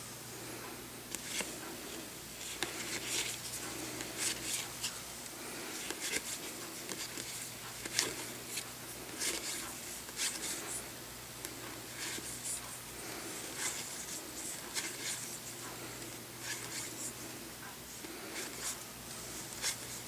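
Magic: The Gathering cards being leafed through by hand, each card slid off the stack onto another: an irregular run of short, dry card-stock sliding and flicking sounds, with a low steady hum underneath.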